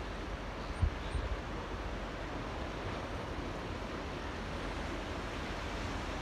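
Gentle waves lapping in a tidal channel, a steady wash of water. About a second in there are a couple of brief low thumps of wind on the microphone.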